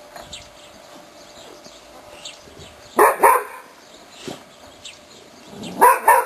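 A dog barking: two quick barks about three seconds in, then a rapid run of barks near the end.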